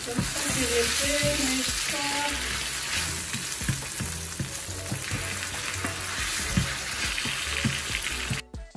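Onions and tomatoes sizzling in hot oil in a stainless steel pan, stirred with a wooden spoon. The sizzling cuts off suddenly near the end.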